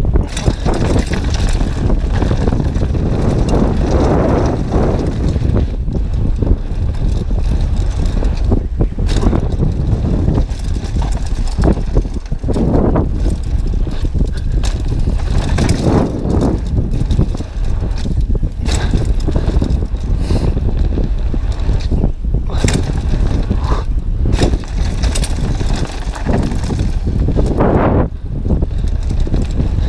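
Downhill mountain bike ridden fast over a rough gravel and dirt trail, heard through the rider's action camera: continuous tyre noise on loose gravel with frequent clattering as the bike rattles over bumps, and wind on the microphone.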